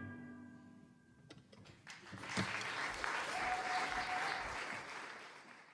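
A jazz orchestra's final chord rings out and dies away. About two seconds in, the audience starts applauding, and the applause fades away near the end.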